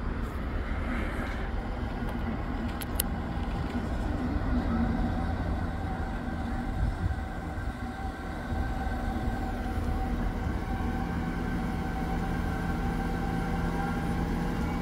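Transport for Wales Class 197 diesel multiple unit running slowly into the platform, its underfloor engines giving a steady low rumble with a steady whine over it. A couple of brief ticks come about three seconds in.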